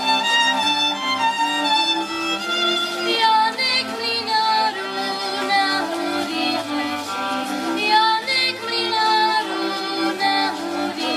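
Folk band led by fiddles playing a Moravian folk song, with a girl singing along.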